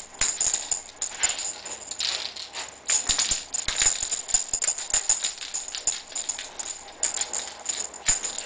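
Continuous tambourine-like jingling and rattling that comes and goes in quick, uneven bursts.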